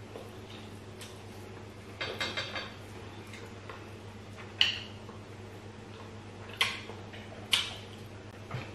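Quiet eating sounds at a table: about five separate sharp clicks and smacks, the first a short cluster about two seconds in, heard over a steady low hum.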